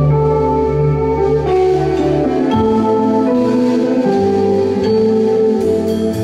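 Live rock band playing a slow passage: electric guitars ring out in long, sustained notes over a held bass line. The bass drops out about two and a half seconds in, leaving the guitars ringing, and a few sharp hits come near the end.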